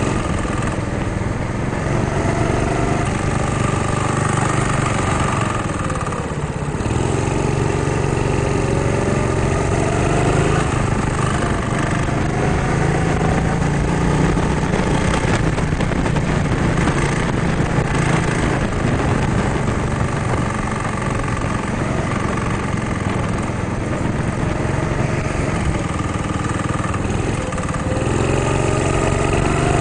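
Go-kart engine heard from the driver's seat during a lap, running hard with its note dropping and rising as the kart brakes into corners and accelerates out, with a clear dip about six seconds in and another near the end.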